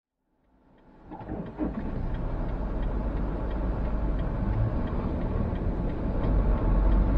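Car driving noise from an in-car recording, fading in over the first couple of seconds: a steady low rumble of engine and tyres, with faint regular ticking through it.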